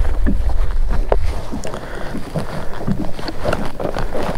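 Wind buffeting the microphone for about the first second, then scattered light knocks and taps as a bass is held and shifted on a plastic fish-measuring board.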